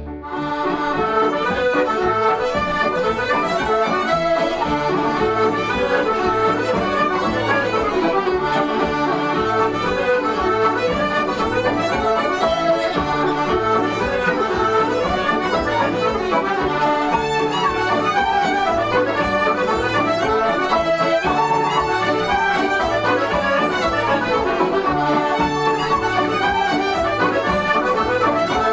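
Instrumental Irish traditional music led by accordion, a brisk, busy melody over a steady bass beat, starting just after a brief dip at the opening.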